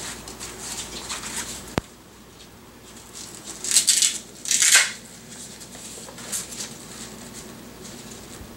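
Nylon fabric of a float tube's stripping apron rustling as a PVC spreader bar is worked into its sleeve. There is a sharp click just before two seconds in, and two louder rasping bursts of handling noise around four seconds in.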